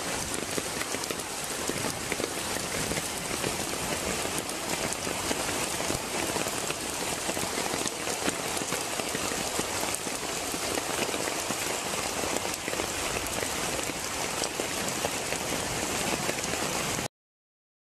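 Floodwater pouring through a gateway and rushing across a flooded yard: a steady, even rush of water that cuts off suddenly near the end.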